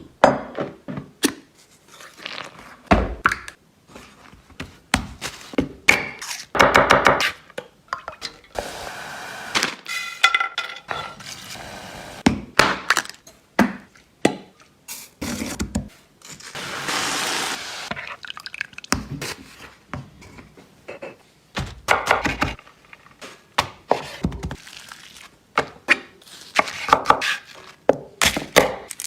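Kitchen prep sounds: irregular thunks and knocks of a knife and utensils on a cutting board and cookware, with a hissing stretch of about two seconds midway.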